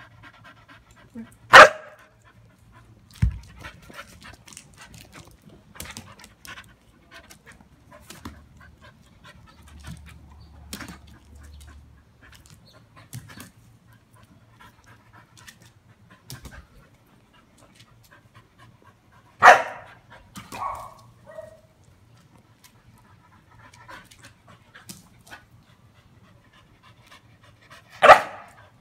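Dog panting while it jumps at a hanging blanket, with three loud, sharp barks: one about two seconds in, one about twenty seconds in and one near the end.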